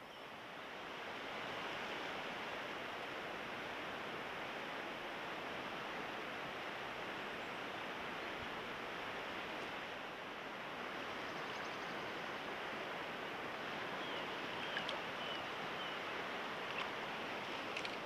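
River water flowing over a shallow riffle, a steady rushing noise that grows a little louder about a second in. A few faint high chirps come near the end.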